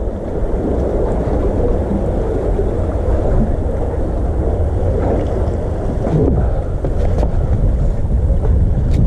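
Wind buffeting the microphone in a steady low rumble, mixed with sea water washing among the concrete tetrapod blocks of a breakwater.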